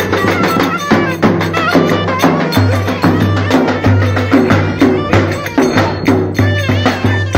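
Traditional Turkish folk dance music: an ornamented, wavering melody over a steady, regular drum beat.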